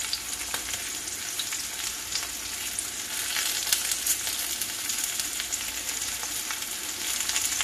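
Cornmeal-breaded yellow squash and onion frying in oil in a cast-iron skillet: a steady sizzle with scattered small ticks.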